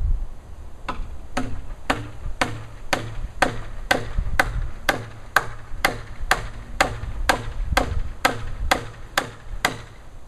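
A hammer striking steadily, about two blows a second, some nineteen sharp blows in all, stopping just before the end.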